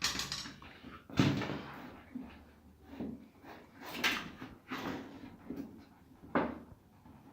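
Several sharp knocks and clatters of parts being handled and set down, the loudest a little over a second in, with lighter rustling between them.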